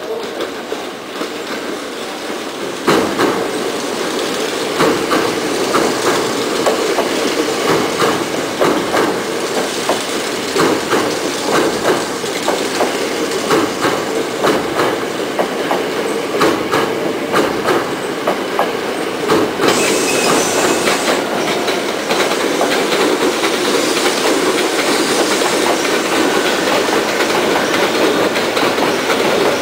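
Hankyu Railway electric trains running past close by over junction tracks, a steady rumbling run with wheels clattering over rail joints and points. About three seconds in the sound grows louder. Near the middle a brief high hiss comes in, and the running noise after it is smoother.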